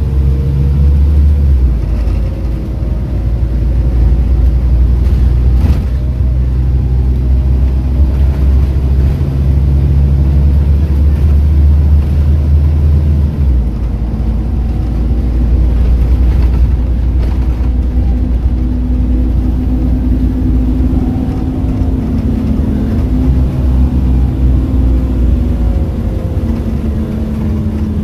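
Scania N230UD OmniCity double-decker bus under way, heard from on board: its five-cylinder diesel engine drones steadily through the cabin along with road noise. The low engine tone drops away about a second and a half in and again about halfway through, as the ZF automatic gearbox shifts.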